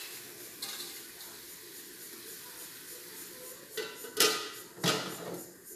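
Aluminium lid set down on an aluminium cooking pot: three metallic clanks about four seconds in, the middle one loudest, with a brief ring.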